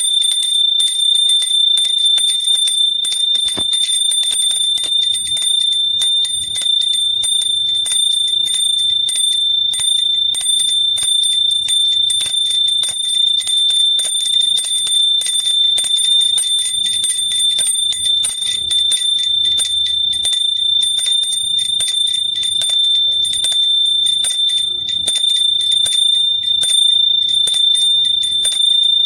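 Small hand bell rung rapidly and without pause, the clapper striking many times a second over a steady, high ringing tone.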